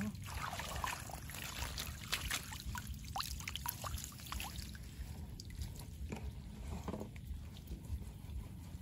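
Water splashing and pouring off a mesh fish trap as it is lifted out of a running ditch, with drips and splashes over the first few seconds. The steady rush of the flowing water continues after that.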